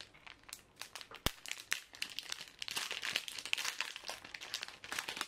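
Plastic candy wrapper crinkling as it is torn open and pulled apart by hand. A sharp click comes about a second in, and the crackling is densest in the middle.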